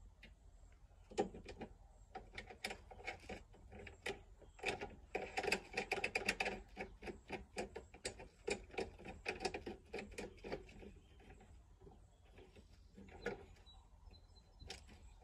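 Lawn mower handle fastener being tightened by hand: quick, irregular plastic-and-metal clicks and rattles, busiest in the middle and thinning out near the end.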